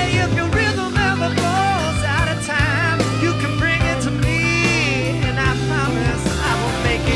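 Rock song with a sung vocal over bass and drums.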